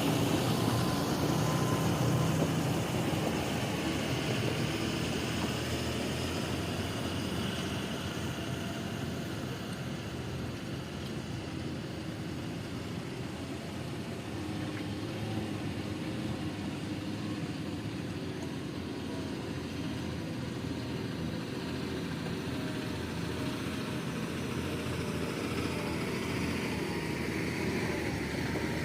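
Heavy diesel engine of construction machinery running steadily, easing off through the middle and getting louder again near the end.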